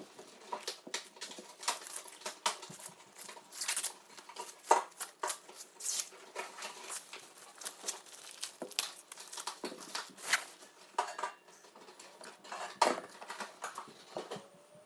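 Kitchen utensils and dishes clinking and tapping in an irregular string of short, sharp knocks.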